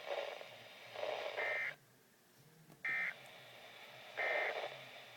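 Three short bursts of warbling two-tone EAS data signal, spaced about a second and a half apart. This is the end-of-message code that closes an Emergency Alert System warning.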